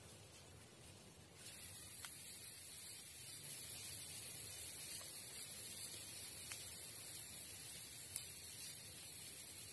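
Steady, high-pitched insect drone from the rainforest that starts abruptly about a second and a half in and holds unchanged, with a few faint clicks.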